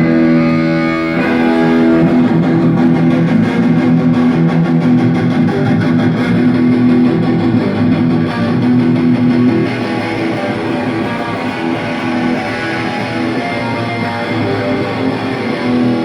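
Amplified electric guitar playing a loud riff. It opens on a ringing held chord, moves into busy strumming, and ends on another held chord.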